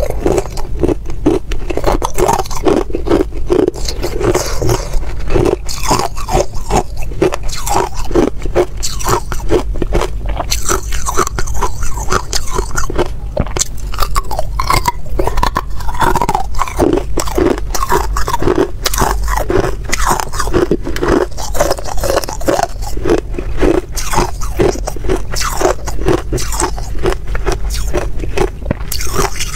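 Hard clear ice cubes being bitten and chewed, close-miked: a dense, unbroken run of sharp cracks and crunches.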